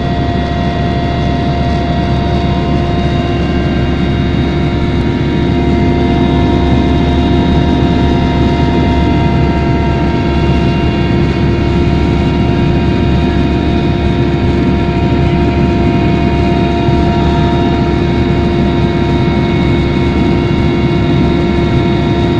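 Helicopter cabin noise in flight: the loud, steady drone of the engine and rotors, with several steady whining tones over it.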